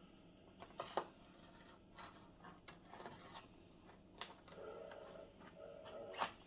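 Faint scratching and scattered sharp clicks of a knife blade cutting into hard plastic packaging, with a brief scraping stretch in the second half.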